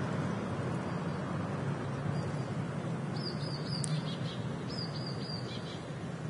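A small songbird sings two short runs of quick, high, falling chirps, each of about four notes, over a steady background hum of city traffic.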